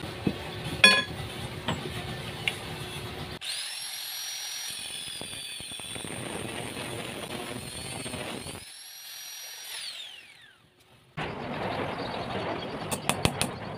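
Electric angle grinder cutting a metal pipe: a high motor whine that dips as the disc bites into the metal, then winds down in a falling whine after switch-off about ten seconds in. Before it, a few sharp knocks and clatter; after it, more clattering with sharp clicks.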